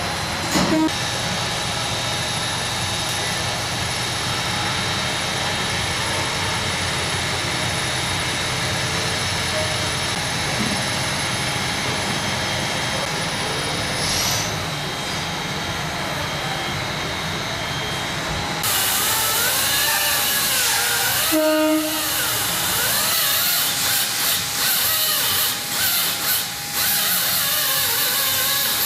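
Steady mechanical hum of shop noise, then, about two-thirds in, an angle grinder cutting into metal, its whine rising and falling as it bites and eases off.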